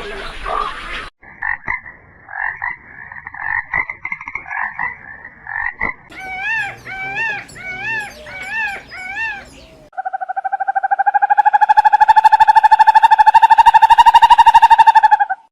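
Frogs calling, several different calls one after another: first a run of short calls, then repeated rising-and-falling chirps about two a second. Last comes one long, loud, rapidly pulsed trill that cuts off suddenly near the end.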